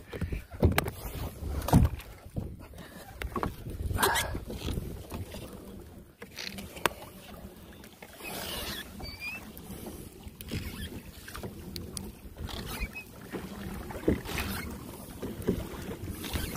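Scattered knocks and bumps from handling gear on a kayak, with water noise, as fishing line is grabbed and hauled in by hand. A few short high squeaks come about eight seconds in.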